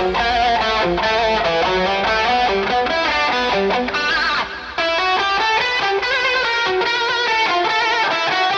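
Psytrance track playing, with a fast, busy lead melody over a steady deep bass. The level dips briefly with a bending pitch glide about four and a half seconds in, and the deep bass drops out near the end.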